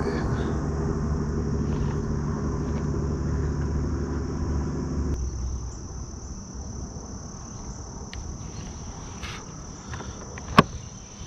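A motor hums steadily, then cuts off abruptly about five seconds in. Insects buzz steadily in the background, and a single sharp click comes near the end.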